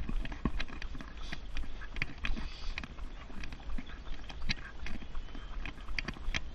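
A runner's footsteps slapping on a paved path, about three a second, mixed with the clicks and rattle of a Thule jogging stroller being pushed along, over a steady low rumble.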